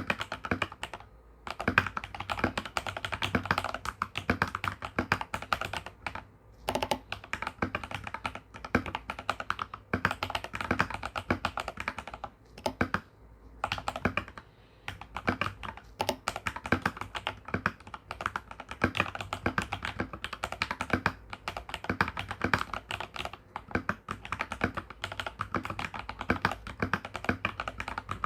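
Fast, continuous typing on an Akko 3098N mechanical keyboard with lubed TTC Ace linear switches, fully modded stabilizers and GMK-clone keycaps: a dense patter of key strokes with a few short pauses.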